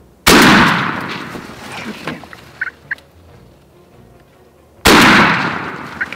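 Two shotgun blasts about four and a half seconds apart, each echoing as it fades. The first shot knocks a gobbler down, and the second is fired after he gets back up.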